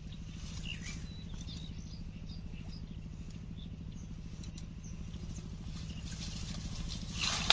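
Outdoor ambience: a steady low hum with faint bird chirps, then a short, louder rustle of brush about seven seconds in.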